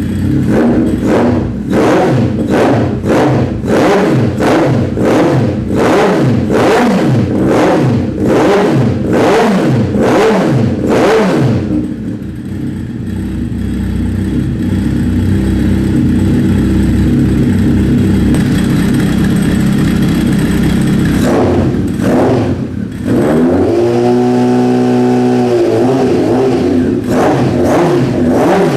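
Honda CB1000SF inline-four engine through a Maverick MV83 carbon slip-on silencer, revved in quick repeated blips about twice a second. It then settles into a steadier run, rises and falls once in pitch, and blips again near the end.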